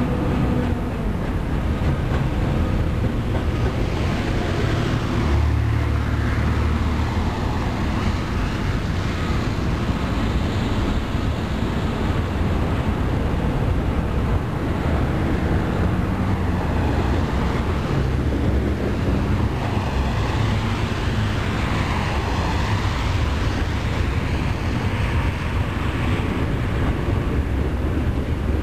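Loaded railroad flatcars rolling past at speed: a steady rumble of steel wheels on rail.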